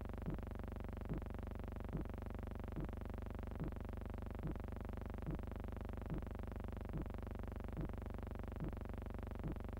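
A steady electronic synthesizer drone with a soft, even pulse a little more than once a second.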